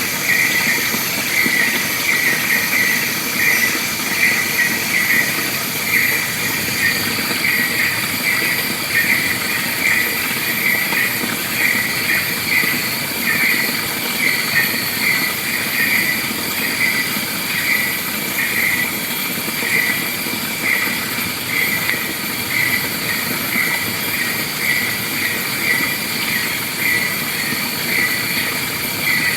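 Wild forest ambience: a short chirping call repeated a little under twice a second over a steady, high-pitched insect drone.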